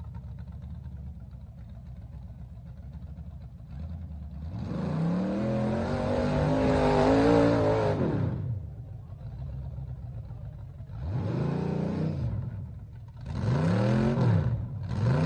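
Loud-exhaust rat rod 4x4 truck's engine running low, then revving in one long rise and fall a few seconds in, followed by three shorter revs near the end, as the truck crawls over tree roots.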